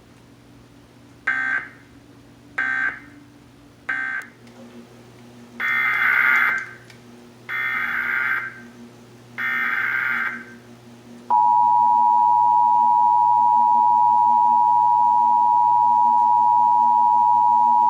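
Emergency Alert System data and alert tones: three short warbling data bursts (the end-of-message code closing a test), then three longer SAME header bursts about a second apart, then the steady two-tone EAS attention signal starting about eleven seconds in and holding to the end.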